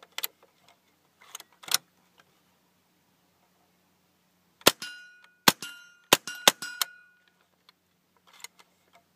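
Cooey 64B semi-automatic .22 LR rifle fired five times in quick succession, sharp cracks about half a second apart, each leaving a short metallic ring. A few light clicks of handling the rifle come before the shots.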